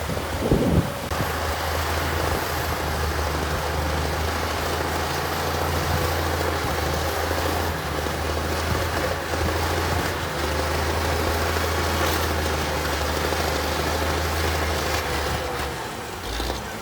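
Diesel engine of a heavy earthmoving machine running steadily, a low droning hum with a faint high whine, dropping away near the end.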